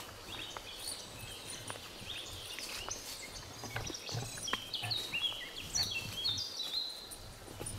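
Woodland birds singing, a run of short falling chirps that grows busier after the middle, over soft footsteps on a grassy forest track.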